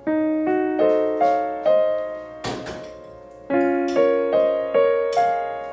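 Background piano music: a slow melody of single notes, each struck and fading, about two or three a second, with a short noisy swish about halfway through.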